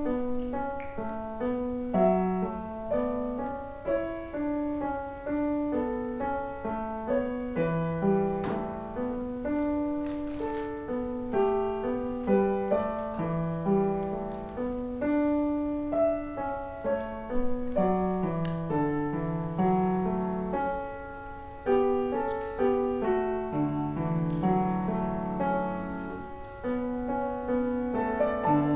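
Solo piano playing a flowing passage: a steady stream of ringing notes, with a lower line moving beneath the higher ones.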